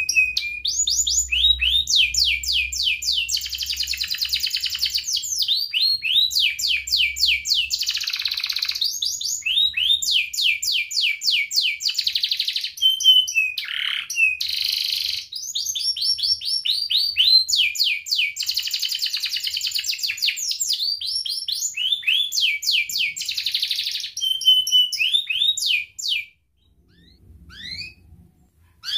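Domestic canary singing a long song of fast, high trills: runs of rapidly repeated notes, the rolling 'ngerek' style that keepers prize, with only brief breaks. The song stops about 26 seconds in, leaving a few short notes near the end.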